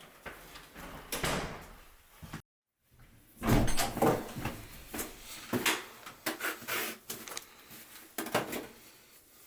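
A string of knocks, scrapes and clatters of things being handled in a small room, the loudest just over a third of the way in. About a quarter of the way in there is a short gap of dead silence.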